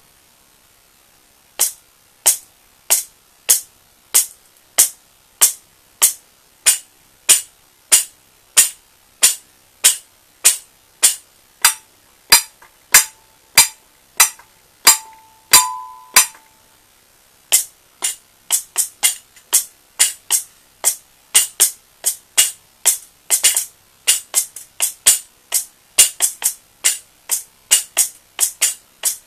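Homemade wooden foot pedals fitted with a shaker tin, bottle-cap jingles and a bell, stomped in a steady beat of about one and a half strokes a second. A bell rings out briefly in the middle. About two-thirds through the strokes become a faster, busier rhythm.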